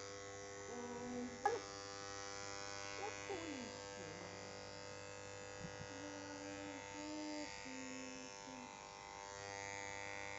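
Corded electric hair clippers running with a steady hum as they cut close to the scalp. A single sharp click sounds about a second and a half in.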